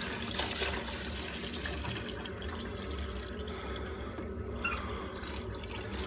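Water pouring from a glass coffee carafe into the water reservoir of a filter coffee machine, a steady splashing trickle.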